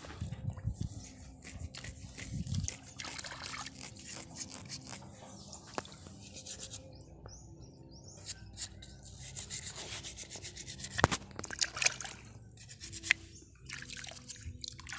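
Tuway clam shells being handled, rubbing and scraping against each other with many scattered clicks; a few sharper clicks come about eleven and twelve seconds in.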